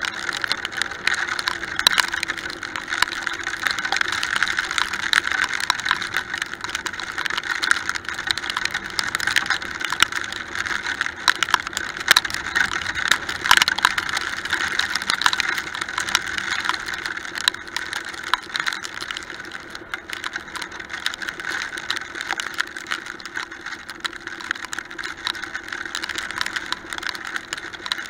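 Two-stroke dirt bike engine running steadily as the bike rides a rough trail, with many sharp clicks and rattles throughout. It eases off a little around two-thirds of the way through.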